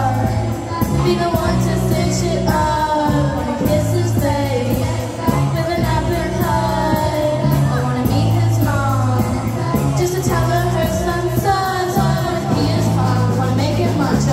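Live band performing a song: several girls singing together into microphones over electric guitar, low bass notes and drums, with steady cymbal ticks keeping the beat.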